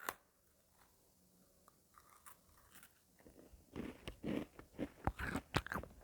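Near quiet, then about four seconds in a quick run of short crunches for about two seconds.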